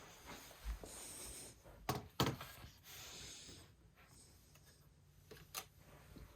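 Faint handling noises indoors: soft rustling and scraping with two light knocks about two seconds in, as accessories and cables are moved about on a desk.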